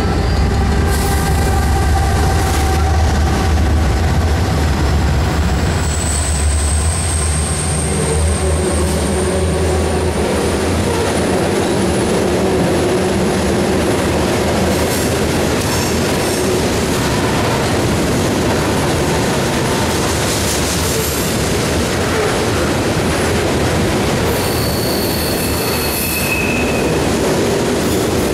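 Norfolk Southern freight train passing close: the diesel locomotives' deep engine drone first, then a long string of covered grain hopper cars rolling by with steady wheel noise. A thin, high wheel squeal slowly rises in pitch through the middle, and shorter squeals come near the end.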